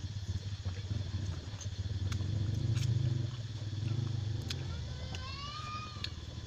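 A motor vehicle engine rumbles close by, swelling around the middle and then easing off. Short wet mouth clicks of someone eating a ripe mango sound over it.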